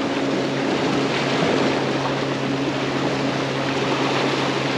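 A motorboat engine running steadily at a constant pitch, a low even hum over a steady hiss of wind and water.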